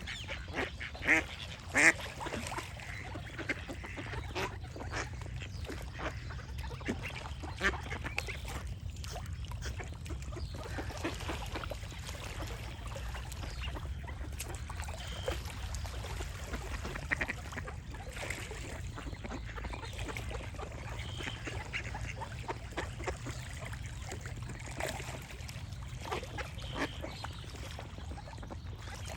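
Duck quacking repeatedly, loudest about one and two seconds in, with small birds chirping now and then over a steady low background rumble.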